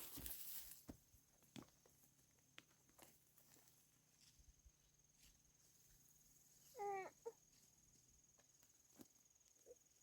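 A chicken clucks once, a short call about seven seconds in with a brief second note just after it. A faint, steady, high insect whine runs throughout, with a few light rustles and clicks.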